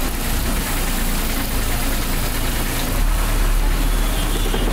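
Ashok Leyland bus diesel engine running, heard from inside the bus along with road noise. A deeper low rumble comes in about three seconds in.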